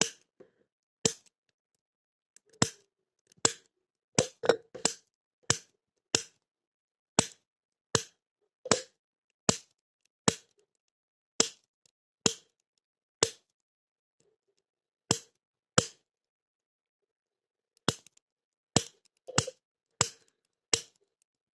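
Hand snapper pick made from a bicycle spoke being flicked against the brass pins of a BAB padlock, giving sharp metallic snaps about once a second, with two short pauses after the middle. The lock does not open.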